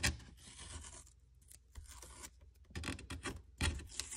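Low-tack masking tape peeled up from a card road stencil, with rubbing and scraping as the stencil is handled. There is a longer scrape near the start, then a few short scrapes and clicks in the second half.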